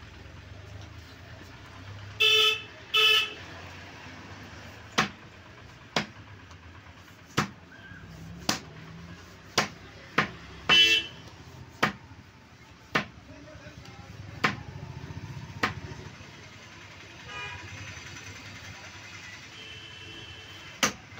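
A broad curved butcher's cleaver chopping boneless meat on a wooden block: sharp single knocks roughly a second apart, about a dozen in all. A vehicle horn honks twice near the start and once more midway, louder than the chops.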